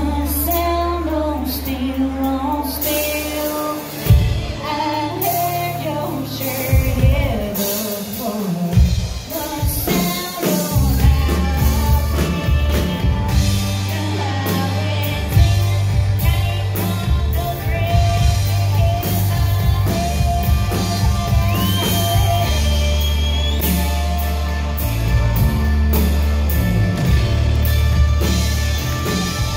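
Live country-rock band: a woman singing lead over electric guitars, bass and drum kit. Her vocal line stands out in the first ten seconds or so, then the band plays on.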